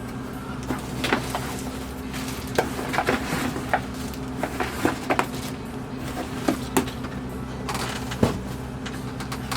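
Irregular light clicks and knocks of sewing machine belts being handled and dropped onto a table, about a dozen over several seconds, over a steady low hum.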